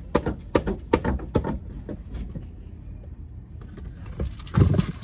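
A cardboard box and its packaging being handled at close range: a quick run of sharp rustles and clicks over the first couple of seconds, then muffled low rubbing and knocking near the end as the box brushes against the recording phone.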